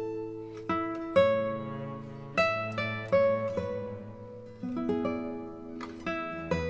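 Background music: an acoustic guitar playing plucked notes that ring and fade.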